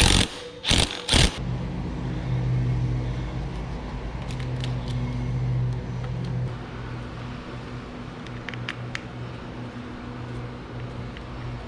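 Three short bursts from a power tool, such as a cordless impact wrench, in the first second or so. Then a steady low hum with a few faint clicks.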